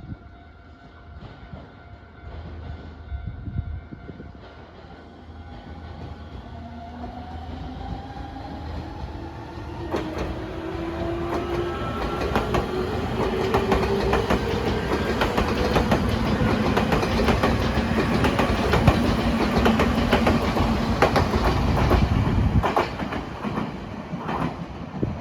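Nankai Line electric train passing: its motor whine rises steadily in pitch as the train gathers speed. Then comes a rapid clickety-clack of wheels over rail joints, loudest about two-thirds of the way in, easing off near the end.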